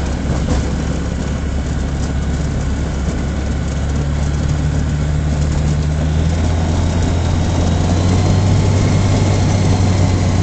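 Savannah ultralight's propeller engine running at low power as the plane taxis on grass, heard from inside the cockpit: a steady low drone that grows slightly louder in the second half.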